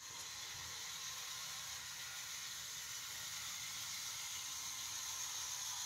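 HO-scale model train running around its track: a steady, even whir and hiss with no distinct clicks.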